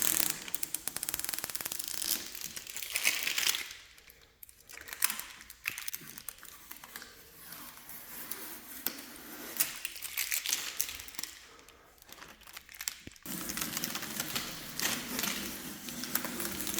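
Plastic protective wrap being pulled off a new flat-screen TV and crumpled, crinkling and crackling in spells, with short lulls about four and twelve seconds in.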